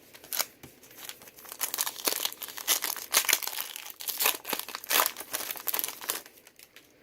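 Trading-card pack wrapper being torn open and crinkled by hand, an irregular run of crackling and tearing.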